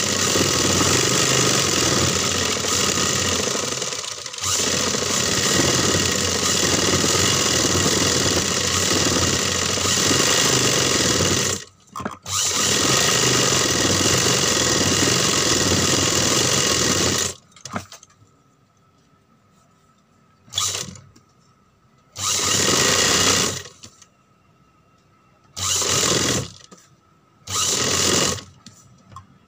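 Industrial sewing machine stitching cloth at speed. It runs steadily with one brief stop about twelve seconds in, then after a pause runs in four short bursts with quiet gaps between them.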